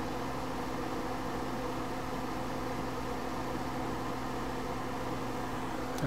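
Soldering fume extractor fan running steadily, an even whir with a constant hum.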